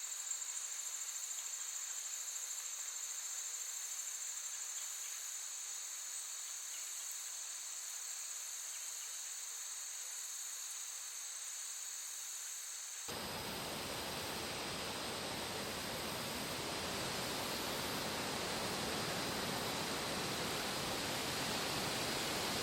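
Steady chorus of crickets trilling high and even. About thirteen seconds in it cuts abruptly to a full, even rushing noise, like flowing water, which carries on and grows slightly louder.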